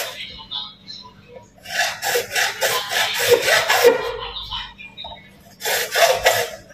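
Hand tool scraping back and forth on PVC pipe, rasping strokes about three a second. The strokes stop for a moment and start again near the end.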